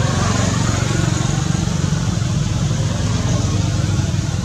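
A motor vehicle engine running steadily with a low rumble, under a constant hiss.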